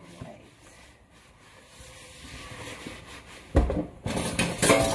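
Kitchen handling sounds: a single solid knock about three and a half seconds in, then a second of clattering, as of pots, utensils or a drawer being worked at the counter.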